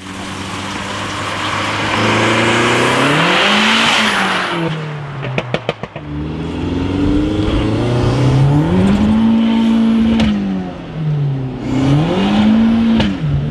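Turbocharged VW 1.8T four-cylinder in a Honda Civic accelerating hard, its revs climbing and then dropping back at each upshift several times. It is heard first from outside the car, then from inside the cabin.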